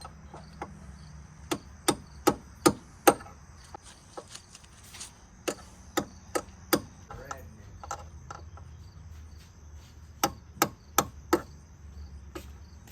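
Hammer blows, metal on metal, driving the worn-out old bushings out of a truck door hinge. There are three bursts of sharp strikes, about two or three a second, with pauses between them.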